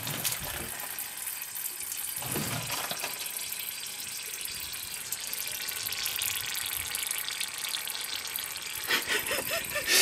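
Partly frozen water and ice slush sloshing inside a plastic gallon water jug as it is tilted and handled, a steady watery rustle with a low slosh about two seconds in.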